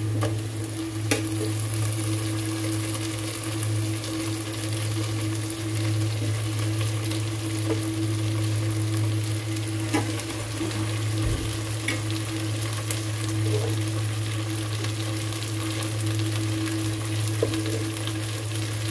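Chicken feet browning in a hot pan, sizzling steadily, with a few sharp clicks of a utensil against the pan. A steady low hum runs underneath.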